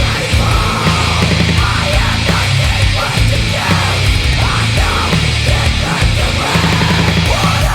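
Loud heavy metal song with pounding drums and shouted vocals.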